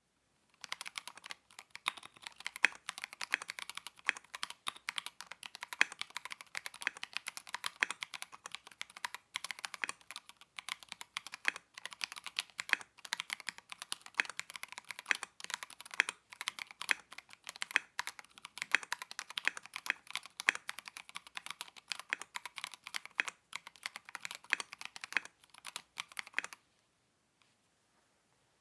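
Typing on a MelGeek Mojo68 Ember gasket-mount mechanical keyboard: a fast, irregular stream of keystroke clicks that stops near the end.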